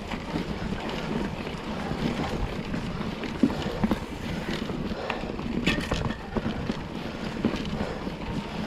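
Mountain bike riding down a rocky trail: wind rushing over the ride camera's microphone, with tyres rolling over rock and the bike rattling and knocking. A few sharper knocks stand out in the middle.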